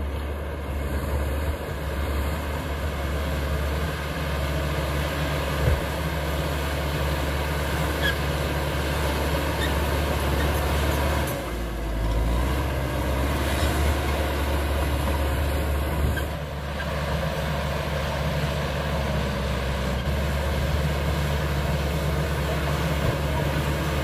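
CAT D5K XL crawler bulldozer's diesel engine running steadily under load as the dozer pushes a mound of soil, its sound dropping briefly a little before halfway and again later.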